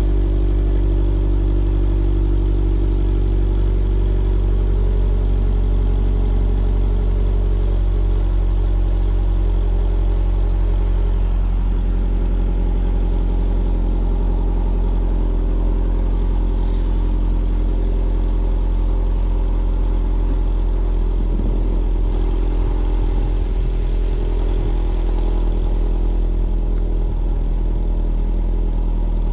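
2009 Subaru Outback's boxer engine idling steadily through a newly fitted stainless steel cat-back exhaust.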